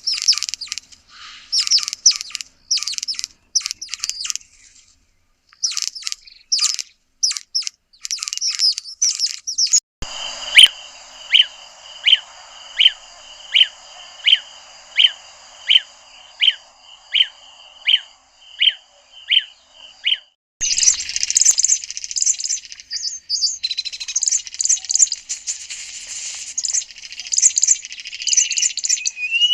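Recordings of three different southern African bird species calling in turn. First come about ten seconds of quick, high chirping phrases. Then a bird repeats one sharp, dropping note about once a second over a hissy background. Dense twittering chatter follows.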